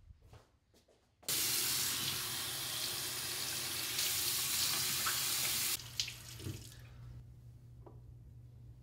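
Bathroom sink faucet running into the basin while hands cup and splash the water for about four and a half seconds, then shut off abruptly. A few soft steps come before it, and a low hum remains afterwards.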